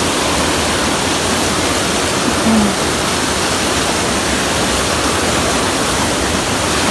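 Steady rush of river water running over rocks and boulders.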